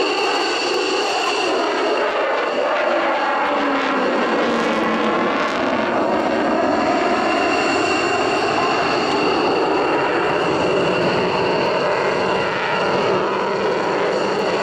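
Mitsubishi F-2 fighter's jet engine running loud and steady overhead during manoeuvring flight, with a falling sweep in the sound a few seconds in as the jet passes.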